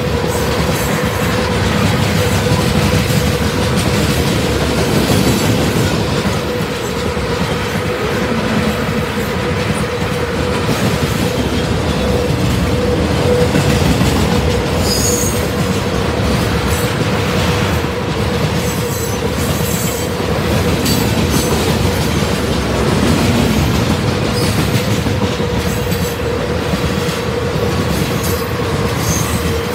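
Cars of a mixed freight train rolling past: a steady rumble of steel wheels on rail with a run of clicks over the rail joints and a steady whine over it.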